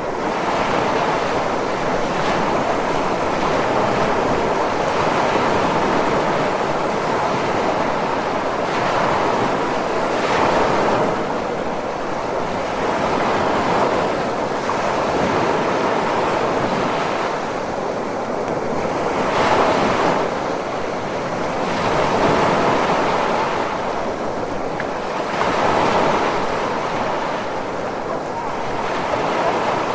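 Ocean surf: a continuous wash of waves that swells and falls every few seconds.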